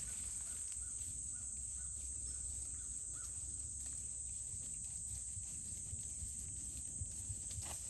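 Steady high-pitched chorus of summer insects, with a bird giving a few short calls in the first few seconds and faint hoofbeats of a horse walking on grass.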